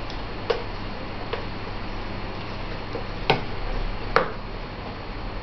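Spoon and small bowl knocking against each other and on a high-chair tray: a few light taps, then two sharper knocks about a second apart past the middle, over a steady low hum.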